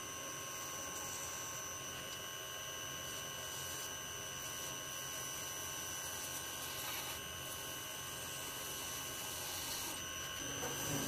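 Lathe running with a steady high-pitched whine made of several constant tones, with brief faint scraping as a hand-held cutter works the tip of a spinning brass bar.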